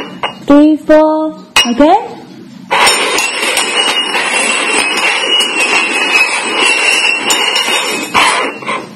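A short bit of a voice with a couple of clicks, then stainless steel cups being slid and scraped across a table as they are shuffled, a steady scraping noise with a faint metallic ring that stops near the end.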